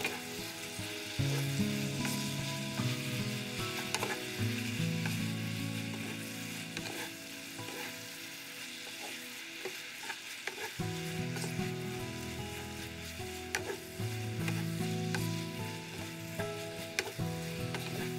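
Noodles and sauce sizzling in a hot nonstick frying pan while being stirred and tossed with a wooden spatula. Irregular short clicks and scrapes of the spatula against the pan run through the sizzle.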